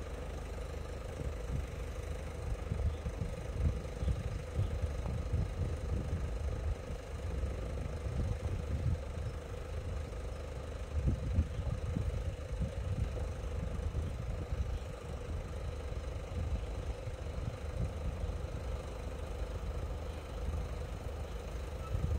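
Wind buffeting the microphone in uneven low gusts, with a faint steady hum held on one pitch.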